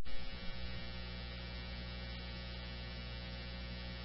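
Steady electrical hum with a buzzy row of overtones on an open radio channel, between dispatch transmissions.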